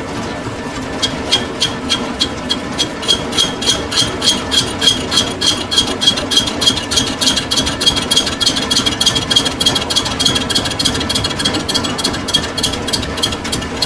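Metal-turning lathe running with a steady hum and a sharp, regular ticking about four to five times a second that starts about a second in.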